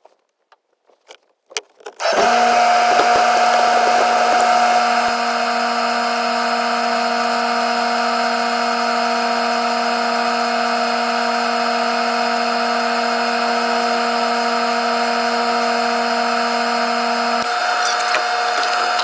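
A motor-driven machine starts abruptly about two seconds in and runs steadily at a fixed pitch, a hum with a higher whine over a noisy rush; its lowest tone drops out near the end.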